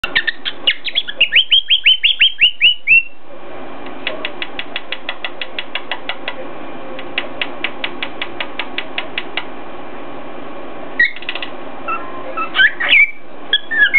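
Cockatiel giving a quick run of short falling chirps, then knocking its head against its perch in two runs of rapid taps, about five a second. A knock and a few more chirps follow near the end.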